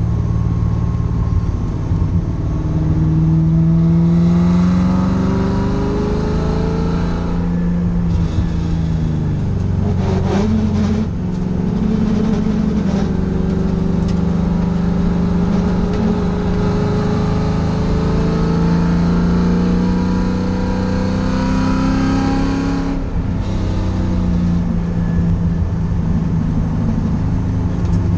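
Engine of a stripped, roll-caged track car revving hard, its pitch climbing and falling again and again as the throttle opens and closes through the corners, heard from inside the cabin. A short spell of clatter comes about ten seconds in.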